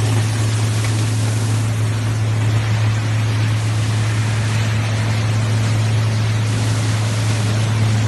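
PE film washing line running: water churning and splashing in the washing tank as paddles push shredded plastic film through, over a steady low electric-motor hum.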